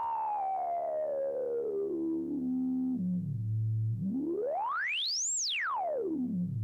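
Software synthesizer holding one low note through a highly resonant 24 dB analog-modelled band-pass filter, with a slight distortion from that analog filter. The cutoff is swept by hand, so a narrow resonant peak glides slowly down to the bass, rests there, then rises high and falls back down again.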